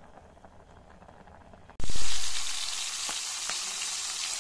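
Two whole fish frying in hot oil in a wok: a loud sizzle sets in suddenly about two seconds in, then eases to a steady hiss with a few pops.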